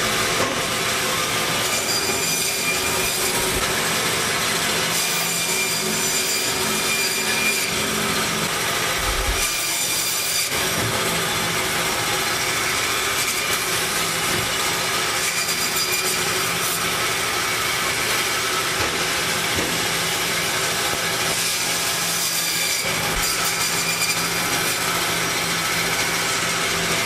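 Steady machine noise with several held tones, unbroken throughout and swelling brighter a few times.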